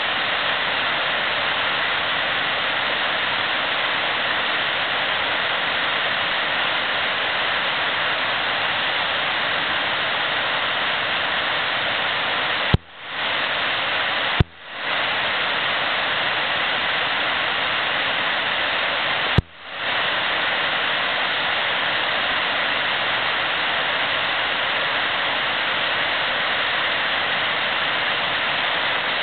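Steady rushing of river water, the noise of a fast-flowing stretch of river, broken three times by a sharp click and a brief drop-out where the recording cuts.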